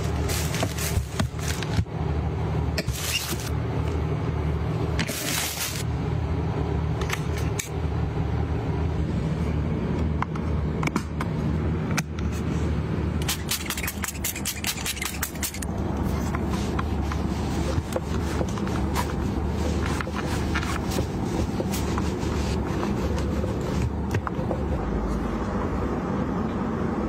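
Handling sounds of small products being unpacked and used by hand: scraping and sharp clicks, with a few short stretches of hissing, over a steady low hum.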